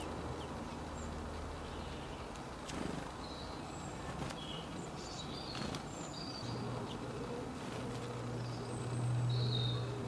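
Outdoor ambience with scattered brief high chirps of small birds and a few light clicks. A low buzzing hum swells about six seconds in and is loudest near the end.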